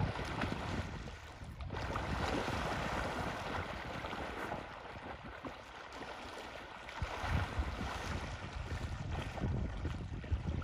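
African elephant swimming and rolling in a river, with water churning and splashing around it and wind gusting on the microphone.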